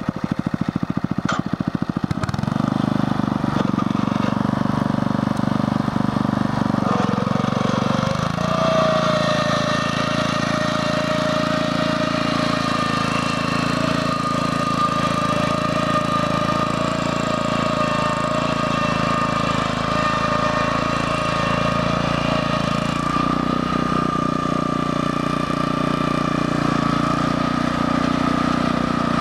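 A BCS 850 walk-behind tractor's engine driving a Berta rotary plow. It picks up about two seconds in, then runs steadily under load as the plow cuts and throws soil, with a steady whine joining about eight seconds in.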